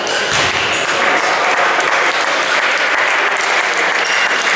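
Spectators applauding the end of a table tennis match, a dense, steady clapping that sets in about half a second in.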